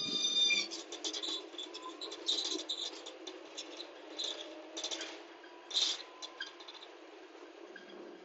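Scattered light clicks and rattles in quick clusters, busiest over the first six seconds, over faint steady street background; a short high chirp sounds right at the start.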